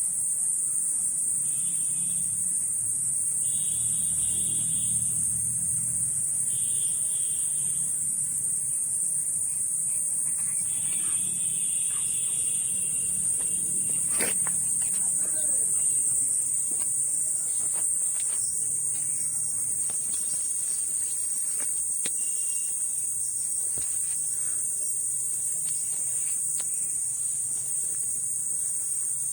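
Cicadas singing: a steady, high-pitched buzz that holds without a break, with a single sharp click about halfway through.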